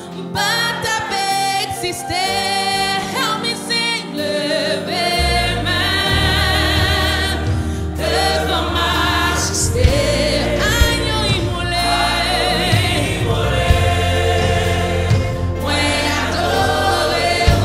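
Gospel worship singing in Haitian Creole: a female lead vocalist with backing singers, over a musical accompaniment. A deep bass comes in about five seconds in.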